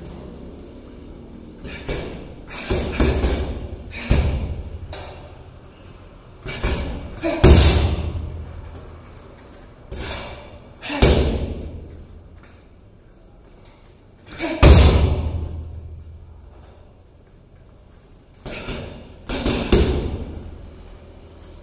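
Gloved punches and kicks landing on a hanging heavy bag: irregular thuds in quick clusters of two or three, with pauses of a few seconds between, each ringing on in the room. Two of the strikes land much harder than the rest.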